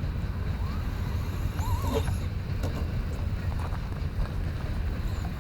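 Traxxas Stampede 2WD RC truck driving, its electric motor whining briefly up and down in pitch a couple of times over a steady low rumble.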